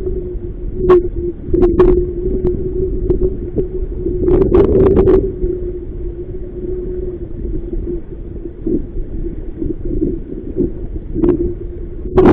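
Strong wind rumbling on the microphone over a steady hum, with scattered sharp knocks and slaps in clusters, out on a small inflatable boat in choppy water.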